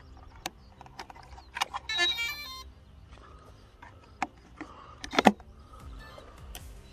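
Clicks of an orange LiPo connector being pushed home in an E-flite Decathlon RJG electric foam plane, then a short run of stepped beeps about two seconds in: the speed controller's startup tones played through the motor as the battery is connected. More clicks follow, with a sharp knock about five seconds in as the battery hatch is shut and the plane is set down.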